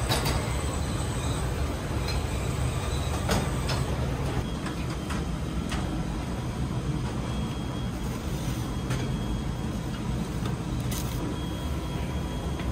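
Commercial kitchen ambience: a steady low rumble of kitchen equipment, with a few short clinks and knocks of metal pans and trays.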